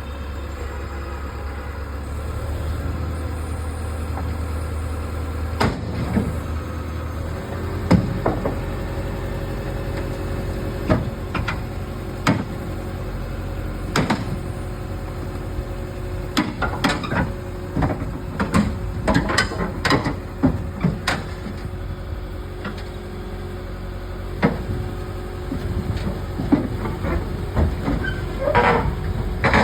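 Excavator's diesel engine running steadily, with repeated metal clanks and knocks that come thicker in the second half.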